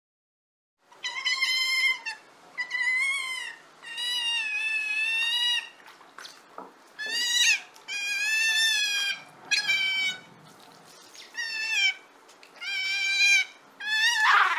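Otter calling: a string of about nine high-pitched squealing calls, each from half a second to nearly two seconds long, wavering slightly in pitch. The calls begin about a second in.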